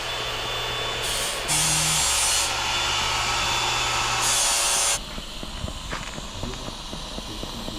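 Steady hiss and buzz of an arc welding torch on a steel exhaust downpipe. It comes in several short takes that change level abruptly and stops about five seconds in, leaving only faint workshop sounds.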